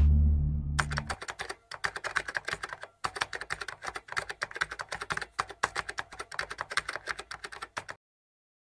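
Typing sound effect: a fast, uneven run of key clicks with two short breaks, stopping abruptly about a second before the end. The tail of a low boom fades out in the first second.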